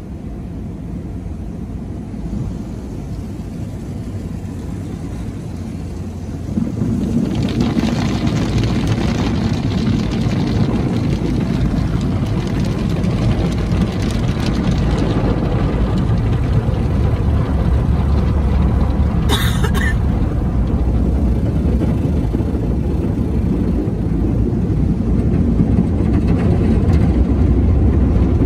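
Automatic car wash heard from inside the car: a steady low rumble of the wash machinery with water and foam washing over the windshield. It grows suddenly louder and fuller about a quarter of the way through and stays loud, with a brief sharp noise about two-thirds of the way in.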